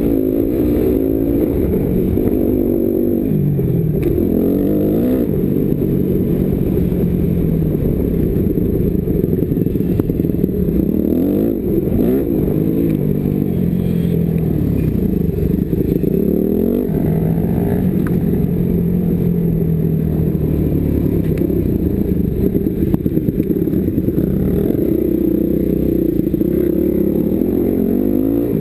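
Dirt bike's single-cylinder engine ridden hard, its pitch climbing and dropping over and over as the rider accelerates, shifts and backs off on the throttle, with a low rumble of wind on the microphone underneath.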